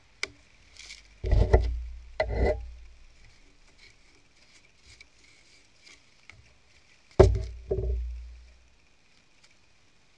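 Jars knocked and set down on wooden planks by gloved hands: a small click, then two pairs of heavy thuds, one pair about a second and a half in and another about seven seconds in.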